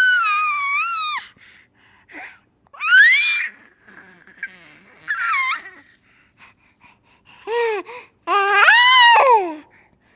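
Baby laughing and squealing: about five very high-pitched shrieks that arch up and down in pitch, separated by short pauses, the longest at the start and near the end.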